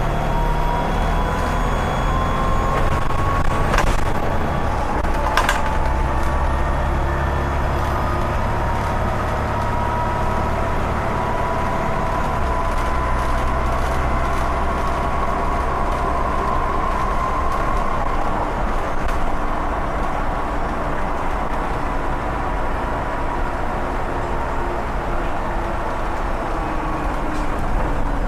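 Volvo B7TL double-decker bus's turbocharged diesel engine running under way, with a high turbo whistle that rises slowly and then eases off over a low engine rumble. Two sharp knocks sound a few seconds in.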